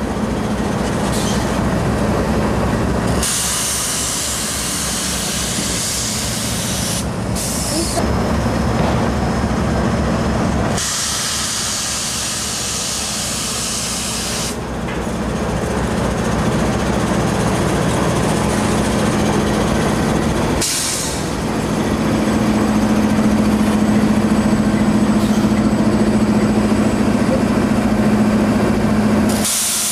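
Norfolk Southern GE C40-9W and C40-9 diesel-electric locomotives, with their 16-cylinder engines, running slowly past close by with a steady low engine drone. Spells of loud hiss start and stop abruptly several times over it.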